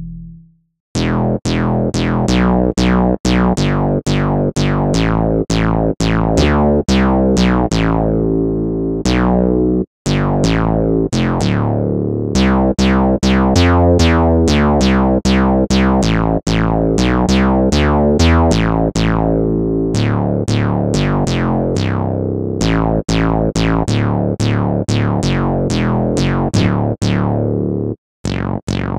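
Sampled Jupiter-4 analog synthesizer (J4 Kontakt library) playing a rhythmic pattern of short plucked notes, each starting bright and quickly closing down, over low bass notes. The sound cuts out briefly about a second in, near the middle and near the end.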